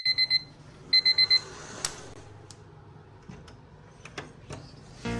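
Digital alarm clock beeping: two short bursts of rapid high beeps about a second apart, followed by a brief rustle and a few light clicks.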